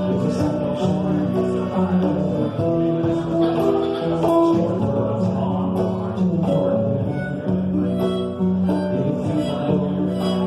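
A small band playing live, with guitar prominent among the sustained notes.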